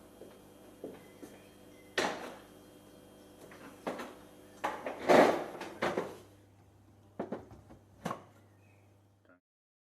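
Handling noise: about eight knocks and clicks at irregular intervals, the loudest about five seconds in, over a low steady hum. The sound cuts off abruptly near the end.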